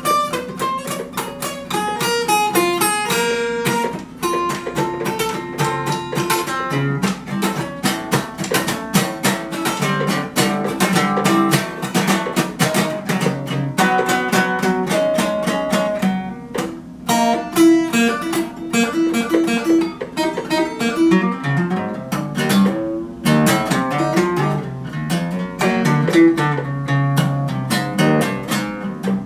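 Acoustic guitar played solo, a run of picked notes and strummed chords with a couple of brief pauses.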